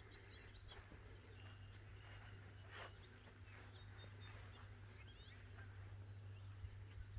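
Near silence: faint scattered bird chirps over a low steady hum.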